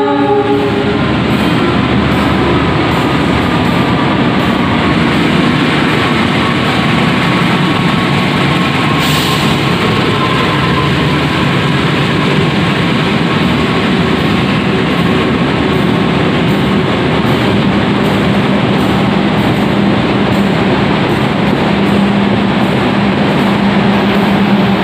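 Locomotive-hauled passenger train passing close along a station platform: a continuous loud rumble and rattle of coaches rolling over the rails. There is a brief hiss about nine seconds in, and a steady low hum builds near the end.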